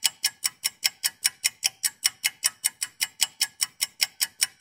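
Ticking sound effect: sharp, even ticks at about five a second, keeping a steady pace throughout.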